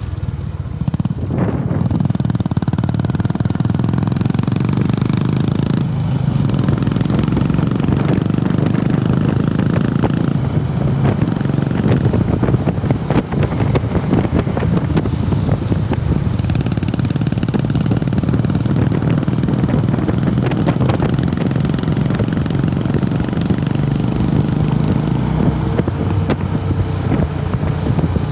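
Honda CB350RS's air-cooled single-cylinder engine running steadily while riding. Its note dips briefly twice, about six and ten seconds in.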